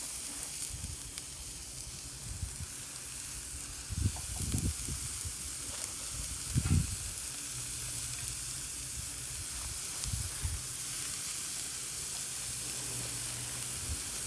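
Burger patties sizzling steadily on the hot cast-iron grate of a charcoal hibachi grill. A few dull thumps come through the sizzle, about four and seven seconds in.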